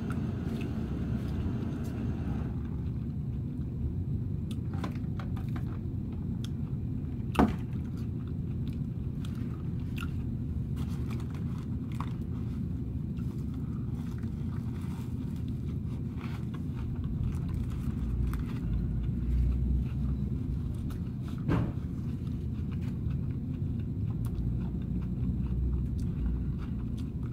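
A person chewing and biting into a crispy fried fish sandwich, with small wet mouth clicks, over a steady low rumble. Two sharper snaps stand out, one about 7 seconds in and one about 21 seconds in.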